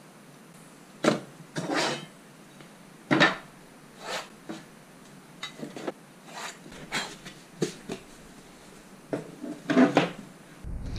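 Hand work on a plywood sheet with a tape measure, pencil and speed square: scattered sharp clicks and knocks with short stretches of rubbing and scraping on the wood.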